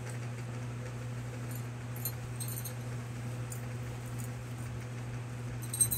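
Metal medals and lanyard clips clinking faintly a few times as the lanyards are handled and pulled over the head, over a steady low hum.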